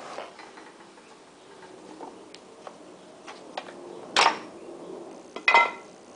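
Metal parts of a disassembled Briggs & Stratton mower engine handled by hand as the crank is turned and the camshaft is taken out: light scattered clicks, then two louder metallic clanks about a second and a half apart, the second ringing briefly.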